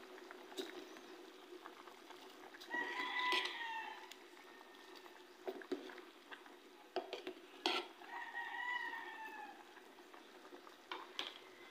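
A rooster crowing twice, about three seconds in and again about eight seconds in, each call lasting about a second. In between come a few sharp clinks of a metal ladle against a stainless steel soup pot, over a steady low hum.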